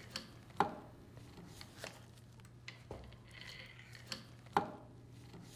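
Light metal clicks and knocks as a screwdriver levers up the trunnion hub and the piston assembly is drawn out of a Kimray dump valve body. The clicks are scattered, with the loudest near the end and a faint brief squeak partway through.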